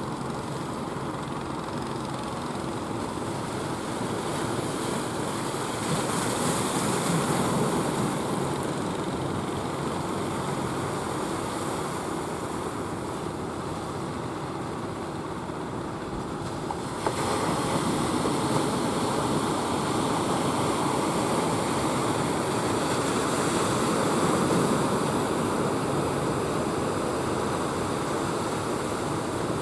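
Ocean surf washing onto a beach: a continuous rush of breaking waves that swells at times, jumping louder suddenly a little past halfway through.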